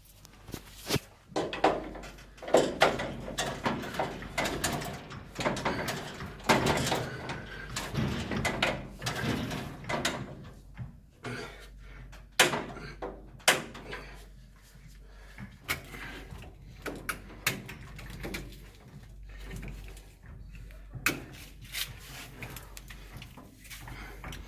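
Irregular clatter of knocks, clicks and scraping, with a couple of sharper bangs a little after halfway through.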